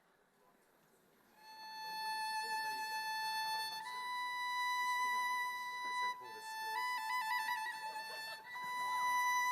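Near silence for about a second and a half, then a solo instrument plays slow, long-held notes, with a quick trill between two notes about seven seconds in.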